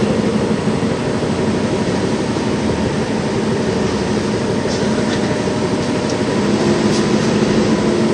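Inside an LVS-86K articulated tram running between stops: a steady rumble of wheels on rails with a humming tone, and a few faint clicks.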